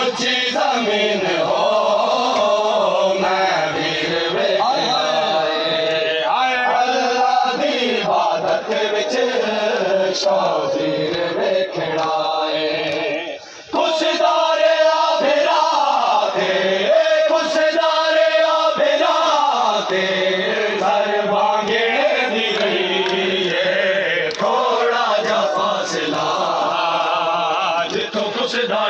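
A nohakhwan party's male voices chanting a noha, a Shia Muharram lament, in long held melodic lines with a short break about thirteen and a half seconds in.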